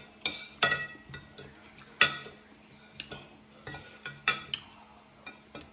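Metal spoon and fork scraping and clinking against a ceramic plate: about ten sharp, irregular clinks, each ringing briefly.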